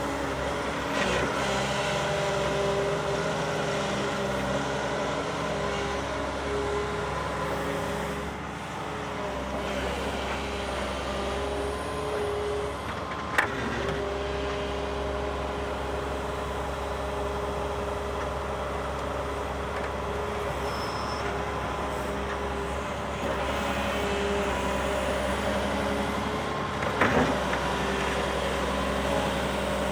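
Volvo ECR 235 CL excavator's diesel engine running steadily under work, with two short knocks, one midway and one near the end.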